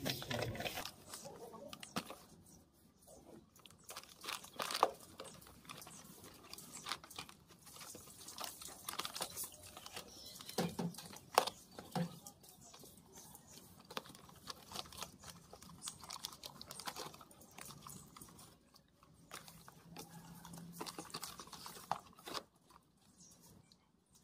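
A young German shepherd chewing and tearing at an empty cardboard tea box, with irregular crunching and crinkling of cardboard and paper.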